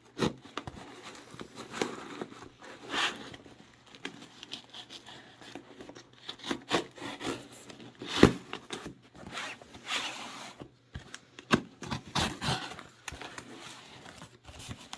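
A postal package being slit and torn open with a knife: irregular scraping, tearing and rustling strokes of the packaging, with a sharper knock about eight seconds in.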